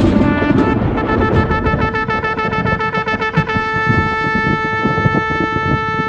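A shofar (ram's horn) blown in one long blast: wavering, broken notes for about the first second, then a single steady held note.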